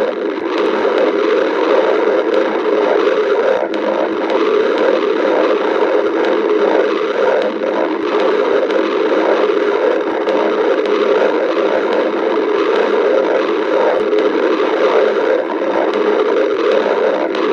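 Human stomach growling: a continuous rumble with no breaks.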